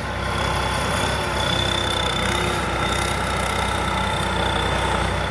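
Combine harvester engine running at a steady speed, a constant low hum with a steady high whine over it.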